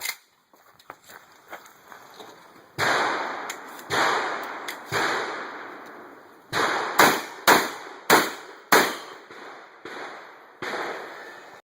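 Shotgun shots fired in a string during a timed match stage, about nine in all: three a second or so apart, then a faster run of five, then one last shot, each trailing off in a short echo.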